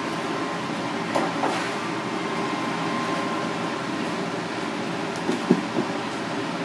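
Steady hum of kitchen ventilation with a faint steady tone in it, broken by a few light knocks, twice about a second in and again near the end.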